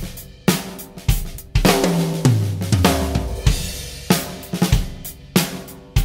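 Drum kit played with a 7x14 heart pine and maple snare drum: sharp snare hits ring out over bass drum and cymbals. A little after two seconds in comes a run of lower, ringing drum strokes that step down in pitch.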